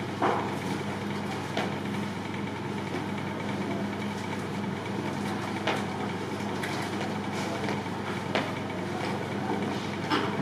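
Room tone: a steady low hum with a few faint knocks or taps spread through it.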